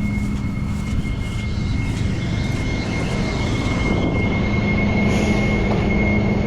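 Rollback tow truck running under load while its bed and winch are worked: a steady low engine rumble with a constant thin high whine over it.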